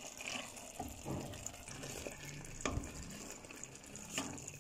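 A spatula stirring minced-beef keema with sliced onions, bell pepper and green chillies in a pot, the mixture frying with a soft sizzle. The spatula knocks against the pot twice, in the second half.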